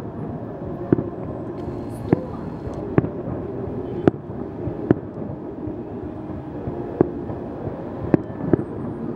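Aerial fireworks shells bursting in the sky, about eight sharp bangs at uneven intervals of roughly a second, with a pause of about two seconds in the middle, over a steady background noise.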